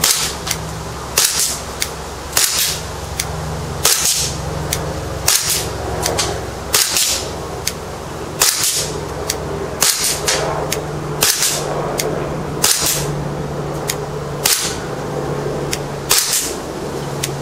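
VFC M&P9 gas blowback airsoft pistol firing single shots, about a dozen at a steady pace of roughly one every second and a half. Each shot is a sharp crack of gas and the blowback slide cycling, with a short hiss after it.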